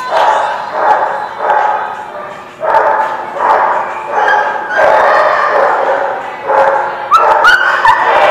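Dogs barking over and over, about one bark every half second, with a few sharp, rising yips near the end.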